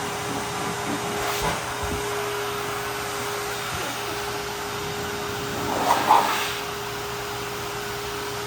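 Hair dryer blowing steadily with a constant motor hum, swelling briefly louder about six seconds in.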